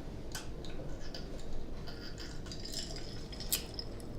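Close-up eating and food-handling noises from a seafood boil: scattered small clicks and wet ticks, with a short stretch of faint scraping about two to three and a half seconds in.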